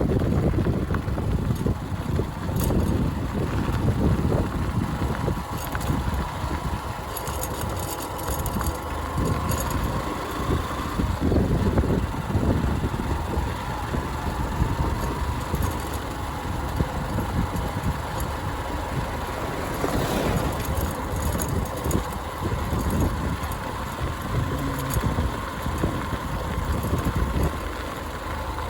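Motorcycle engine running as the bike is ridden along a rough road, with an uneven low rumble and a steady whine underneath.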